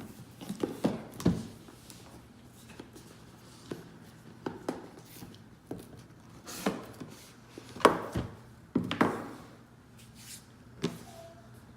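Boxed product packaging being handled and opened by hand: scattered knocks and taps, with a few louder scrapes and rustles in the second half.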